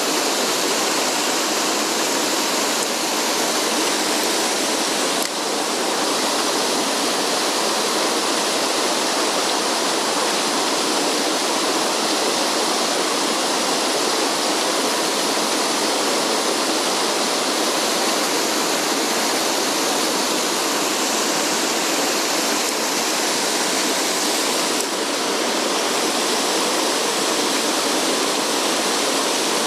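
Mountain stream water rushing over rocks, a loud, steady rush with no break.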